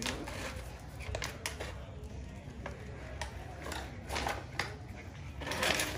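Puppies playing on concrete: scattered light clicks and taps, then a short burst of scuffling noise near the end.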